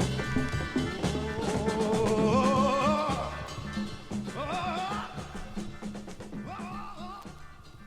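Instrumental outro of a 1970 funk-psychedelic rock record: bass, drums and a wavering lead line, fading out steadily toward the end of the song.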